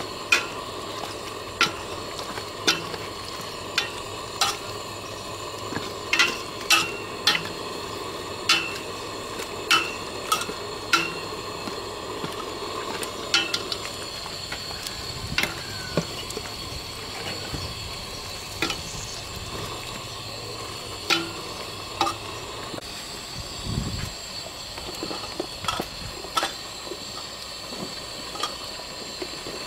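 A metal ladle stirring curry in a stainless steel pot, clinking sharply against the pot's sides at irregular intervals over a steady sizzle of the simmering coconut-milk curry. A dull thump comes near the end.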